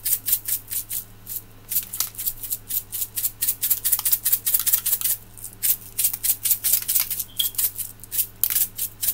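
Rainbow sprinkles rattling inside a handheld shaker container as it is shaken hard over a cake, about five quick shakes a second in runs broken by brief pauses.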